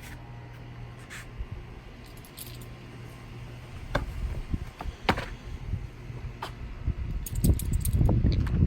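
Scattered sharp clicks and metallic jingling over a steady low hum in a car, with a louder low rumble near the end.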